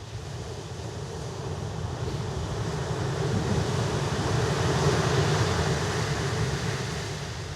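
Sea waves surging and breaking, a dense rushing roar that swells to a peak about five seconds in and then eases off.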